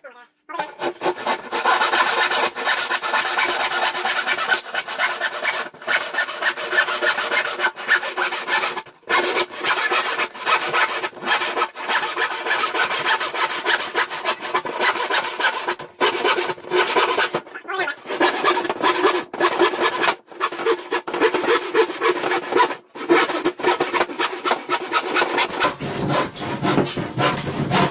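Hand saw cutting through a wooden board, a long run of rasping strokes broken by a few short pauses.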